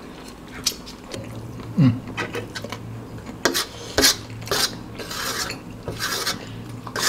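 Eating sounds: utensils clicking and scraping against a metal baking tray, with irregular sharp clicks, and chewing and slurping mixed in.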